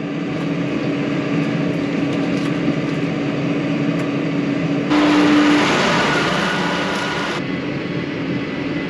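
New Holland T6.180 tractor's six-cylinder engine running steadily under way, heard from inside the cab with a steady droning hum. About halfway through, a louder rushing noise cuts in abruptly for a couple of seconds and stops just as abruptly.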